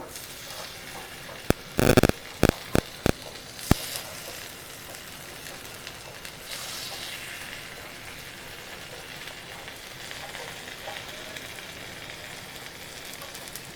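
Kara paniyaram frying in oil in a paniyaram pan, a steady sizzle, with several sharp clicks of a utensil against the pan in the first few seconds as the dumplings are turned over.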